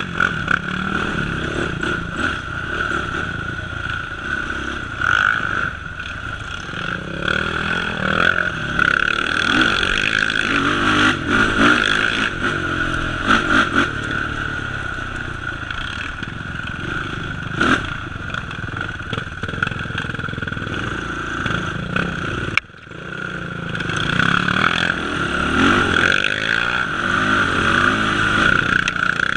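Sport ATV engine running on a trail ride, its note rising and falling with the throttle, with some clatter. The sound drops out briefly about three quarters of the way through.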